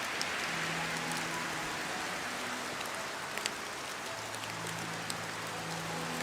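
Steady rain: a dense, even hiss with scattered sharp drop ticks. Faint low sustained tones sit underneath.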